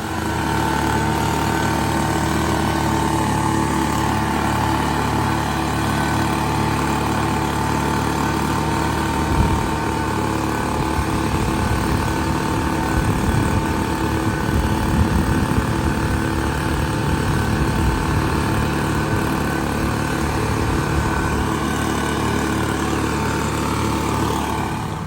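An engine running steadily at a constant speed, with a steady high whine over its hum.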